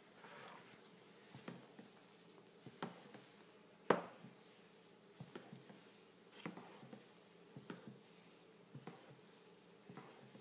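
Spatula knocking and scraping against a stainless steel saucepan while beaten egg whites are folded into the milk and yolk mixture: light taps about once a second, the loudest about four seconds in, over soft scraping.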